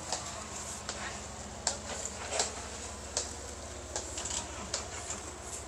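Tools clinking and scraping irregularly, a few sharp clicks each second, over a steady low hum.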